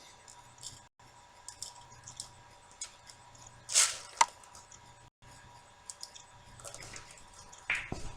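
Scattered faint clicks and ticks, with a short clatter about four seconds in followed by a sharp metallic click, and another brief rustle near the end.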